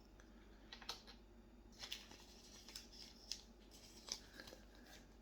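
Stickers and small packaged items being handled: intermittent soft rustling and crinkling of paper and plastic, with a few light taps and clicks about once a second.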